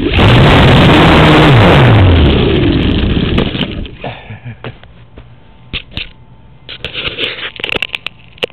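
Small electric RC airplane's brushless outrunner motor and propeller, heard through the onboard microphone: a loud rushing whine whose pitch wavers up and down, dying away about three and a half seconds in as the plane comes to rest on the grass and the propeller winds down. After that, scattered clicks and knocks.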